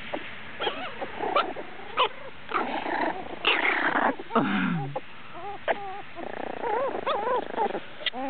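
A litter of puppies yipping, squeaking and whining, with short rough play-growls mixed in, many short high calls one after another.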